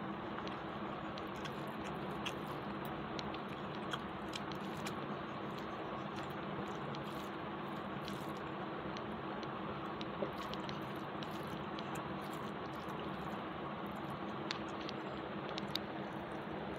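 Fingers mixing rice with curry on a plate and a person chewing, as soft, scattered squishy clicks over a steady hiss.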